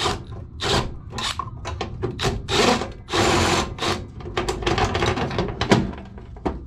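Screws being backed out of the old thermostat control's mounting with a 5/16-inch nut driver: repeated metallic scraping and clicking strokes, with a steadier spell of driving about three seconds in.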